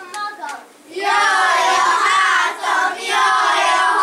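A group of children singing together in unison. The singing starts about a second in, after a brief quieter moment.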